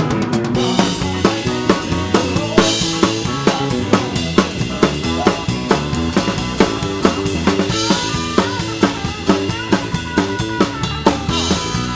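Drum kit played close up in a live rock-and-roll band: a steady kick-and-snare beat with cymbals over the bass and guitar.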